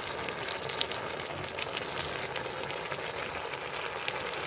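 Vegetable stew simmering and sizzling in a cast-iron potjie pot over a wood fire: a steady hiss dotted with many small pops and crackles.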